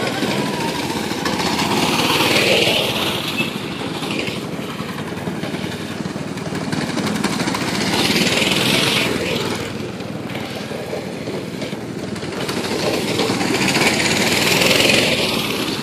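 Go-kart engine running as the kart circles. It swells and fades about every six seconds as the kart passes close by.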